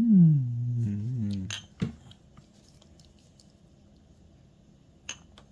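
A man's voice drawn out in a sing-song, gliding down and up in pitch for about the first second and a half. Then a quiet room with a sharp click a moment later and another small click near the end.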